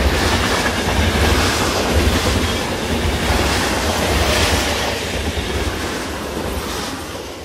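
A rail transit train running on the tracks, a deep rumble with rattling over it, fading away over the last few seconds.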